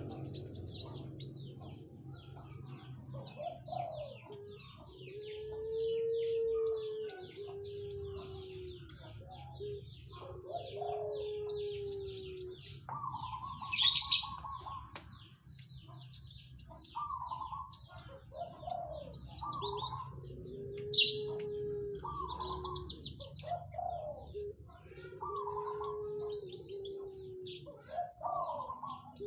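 Caged branjangan (Javan bush lark) singing a continuous, varied song of fast chattering trills. Low arched cooing notes come and go beneath it, and two sudden loud sharp notes stand out, one about halfway through and one about two-thirds through.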